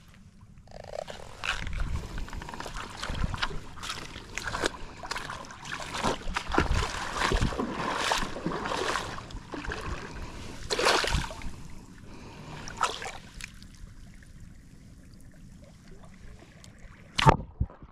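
Shallow seawater sloshing and splashing in irregular surges as a person wades through it, going quieter about two-thirds of the way through, with one short sharp sound near the end.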